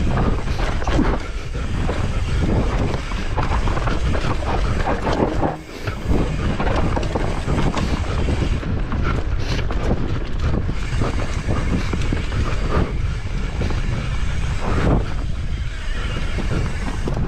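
Mountain bike descending a rough trail: tyres rumbling over dirt and rock and the bike rattling on the bumps, with wind buffeting the microphone. The racket eases briefly about six seconds in.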